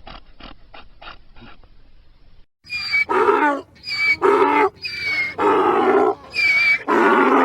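Donkey braying: the tail of a bray fades away in quick short gasps, then after a brief pause a loud full hee-haw begins, about six long strokes alternating between a wheezy squeal and a lower honk.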